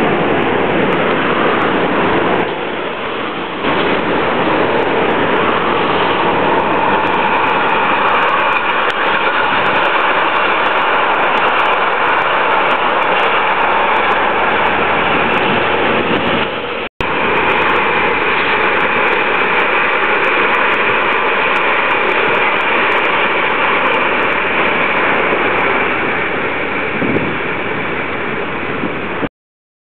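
Steady street traffic noise with a light rail train running past on its street tracks. The sound cuts off abruptly twice.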